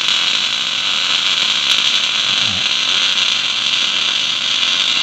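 Wire-feed (MIG) welding arc laying a continuous bead on a steel car-frame crossbar: a steady, unbroken hiss.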